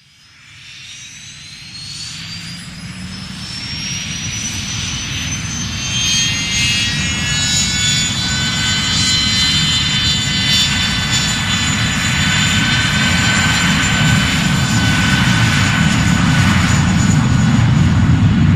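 Airplane engines powering up for takeoff: a high whine that rises in pitch and then holds steady, over a deep rumble, the whole sound growing steadily louder.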